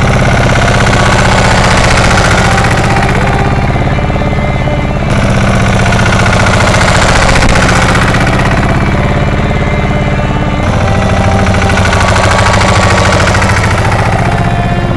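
Small Pasquali tractor's Lombardini diesel engine running steadily and loudly with a knocking rattle as the tractor drives and works a rear blade through a manure pile. The sound shifts abruptly twice, about a third and two thirds of the way through.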